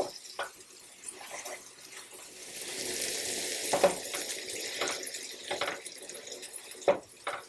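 A spatula chops and scrapes burger patties on a hot griddle pan, with scattered sharp knocks of the blade against the pan. The frying meat sizzles, and the sizzle swells for about two seconds around the middle.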